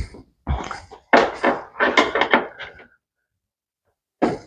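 Clustered knocks and clatter of tools and hands on the washing machine's plastic cabinet as screws are taken out of its top cover, falling quiet for the last second or so.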